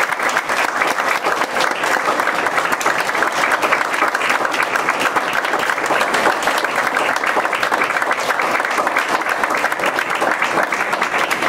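Audience applauding, a room full of hands clapping steadily.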